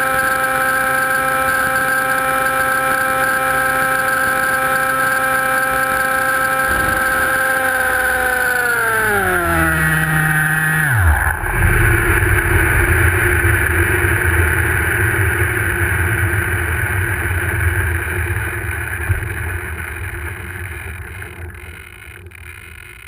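Motor whine of a camera-carrying remote-controlled aircraft in flight, holding a steady pitch and then falling away over a few seconds as it lands and the motors wind down, with a knock as it touches down. A rougher rumbling noise follows and fades out near the end.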